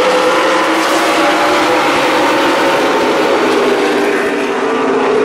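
A pack of NASCAR Cup stock cars running together under power on a restart, their V8 engines making a loud, steady drone of several overlapping pitches.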